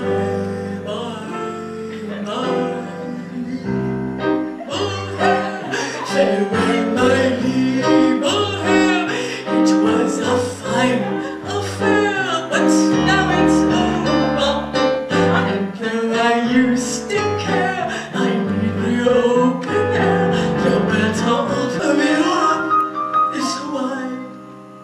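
A voice singing a song with vibrato over piano accompaniment, the piano keeping up repeated low bass notes.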